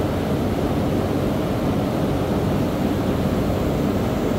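Misting fans blowing cooling water spray over the hippo pool: a steady, even low noise with no breaks or changes.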